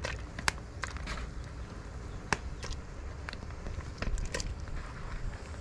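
Handfuls of termite mushrooms being handled in a plastic basin and dropped into a pot of curry broth: scattered light crackles and sharp clicks over a steady low rumble.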